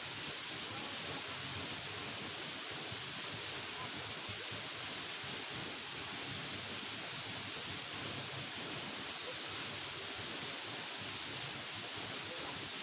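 Steady rushing of a waterfall: an even, unbroken hiss.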